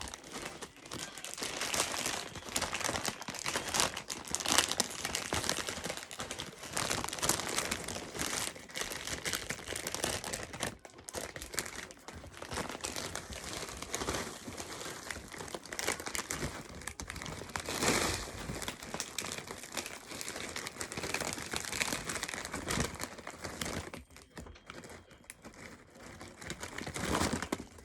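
Plastic snack packets crinkling and rustling as they are handled and their contents combined, irregular and nearly continuous, getting quieter near the end.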